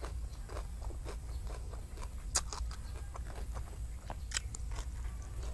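Close-miked eating by hand: chewing and lip smacks, with a few sharp wet clicks, as a mouthful of rice is eaten, over a steady low hum.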